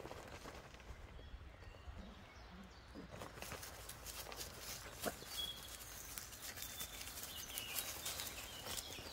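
Whippet puppies scrambling and playing on dry leaves and a tarp: faint rustling and patter of small paws with scattered clicks, and a few faint high chirps in the second half.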